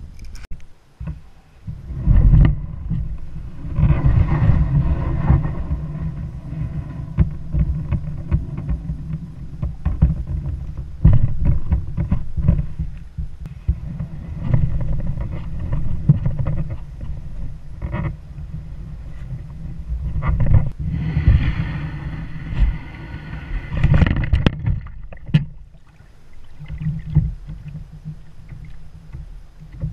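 Hull of a loaded Jackson Kayak Coosa HD fishing kayak moved across the ground to the water, heard through a camera mounted on the kayak: loud, uneven rumbling and scattered knocks, starting about two seconds in and easing off near the end.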